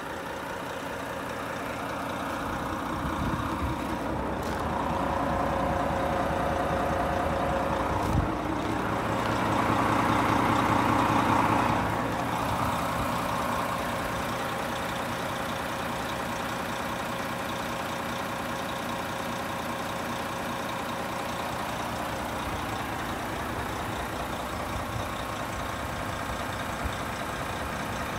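Renault T460 tractor unit's 11-litre six-cylinder diesel engine idling steadily; the sound grows louder for several seconds in the middle, with a single knock about eight seconds in.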